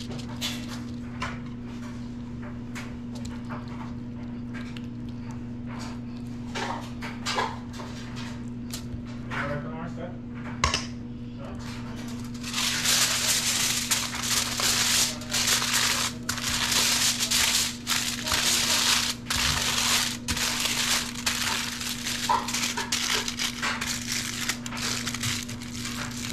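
Sheets of aluminium foil being folded and crinkled by hand around a stuffed whole fish. Small taps and handling noises first, then loud continuous crinkling from about halfway through that eases off into shorter bursts near the end.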